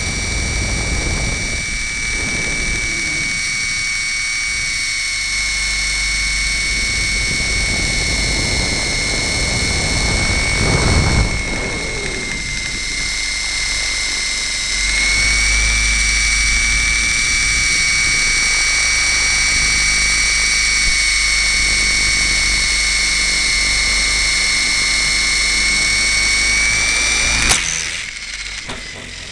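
Radio-controlled helicopter in flight, heard through a camera mounted on the machine itself: a steady high whine over the running noise of motor and rotor, with a brief surge of noise about eleven seconds in. Near the end there is a sharp knock as it touches down, and the sound drops away.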